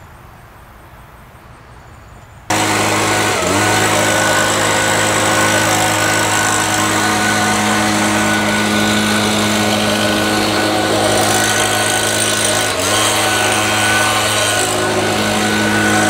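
Stihl BG 56C two-stroke gas leaf blower running at high speed: a steady, loud engine whine over rushing air. It cuts in abruptly after a couple of seconds of faint outdoor quiet, and dips briefly in speed twice.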